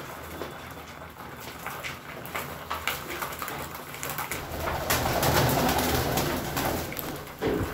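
Flock of domestic pigeons feeding at a seed tray: continuous cooing mixed with many sharp clicks of beaks pecking the tray and wings flapping. It grows louder a little past halfway.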